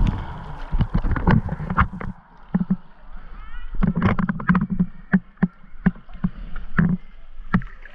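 Kayak being paddled: irregular sharp clicks and knocks from the paddle and hull, with low hollow thumps and water splashing.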